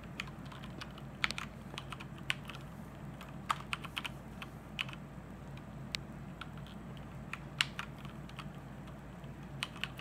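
Taidu TKM600 mechanical keyboard with Cherry MX Silver linear switches: keys pressed now and then, giving irregular separate clacks rather than steady typing.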